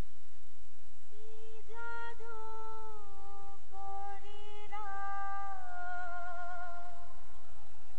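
A woman singing a slow melody without accompaniment, starting about a second in, with long held notes and vibrato.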